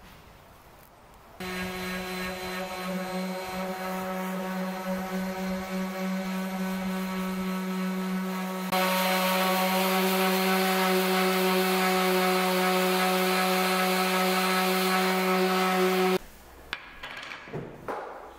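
Bosch random orbit sander running steadily on a wooden tabletop, a constant motor hum with a rasping sanding noise, louder from about halfway. It stops suddenly near the end, followed by a few soft knocks.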